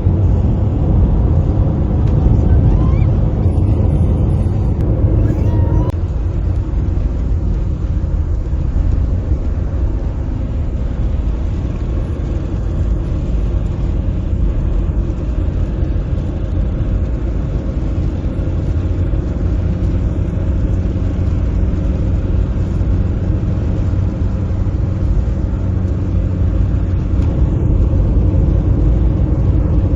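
Steady low rumble of a car driving on a highway, road and engine noise running evenly throughout.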